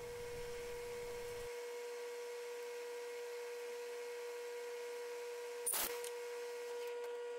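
A faint steady hum on one pitch with a fainter higher overtone, and a single short click about six seconds in.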